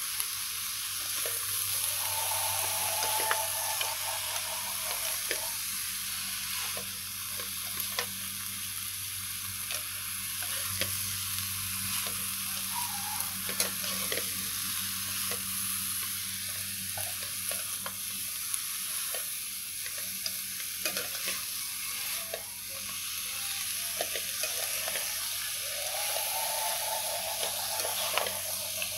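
Bean sprouts, fried tofu and oyster mushrooms sizzling steadily as they are stir-fried in a wok, with many small scrapes and taps of a spatula and chopsticks tossing them against the pan.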